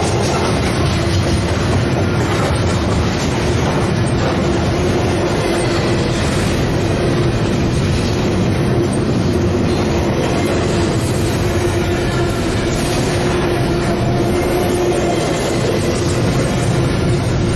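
Double-stack container freight train rolling past at close range: a steady, even rumble of steel wheels on the rails, with a thin steady tone held underneath.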